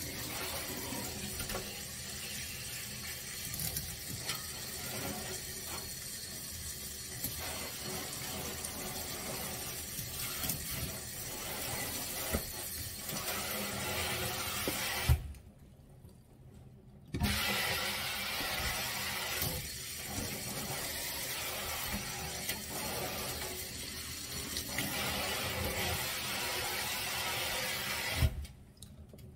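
Water running from a pull-down sink faucet and splashing onto a wet dog in a stainless steel sink. It cuts off for about two seconds midway, then stops near the end.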